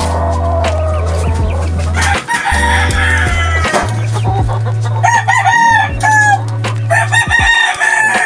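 Roosters crowing, several crows one after another.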